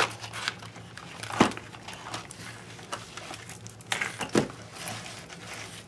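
Paper rustling as a thick handmade altered book is handled and turned over: stiff collaged pages and board covers brushing and flapping, with a few sharp knocks and taps.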